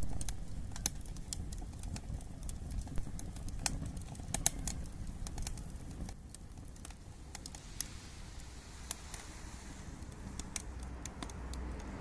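Scattered sharp crackles and ticks from the burnt-down wood stove's last embers, irregular and a few a second, over a low steady outdoor rumble.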